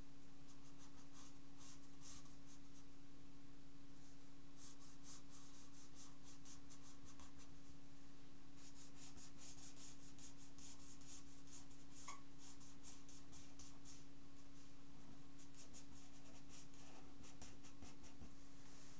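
Felt-tip pen scratching across paper in quick runs of short strokes, with short pauses between runs. A steady low hum lies underneath.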